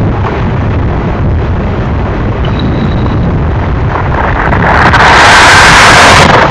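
Freight cars of a Union Pacific manifest train rolling past, a loud, steady low rumble of wheels on rail. About four and a half seconds in, a loud rushing hiss rises over it and lasts for nearly two seconds.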